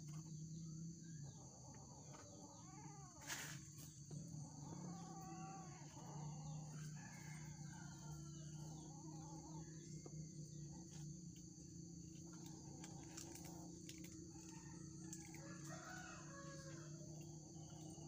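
Faint chicken calls scattered through, over a steady high insect drone and a low hum, with one sharp knock about three seconds in.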